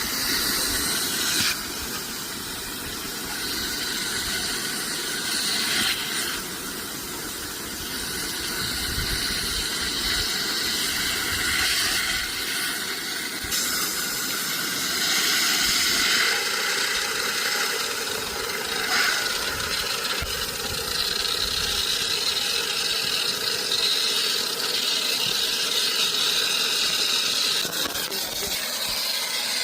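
Water rushing, a steady hissing noise that shifts in tone a few times.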